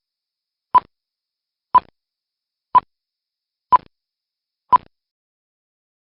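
Five short electronic beeps, one a second, all the same pitch, with dead silence between them, stopping about five seconds in, like a countdown.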